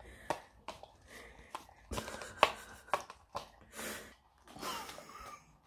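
A dog licking out a small plastic pot held in a hand: irregular wet smacks and clicks of tongue and muzzle against the plastic, a few of them sharper near the middle.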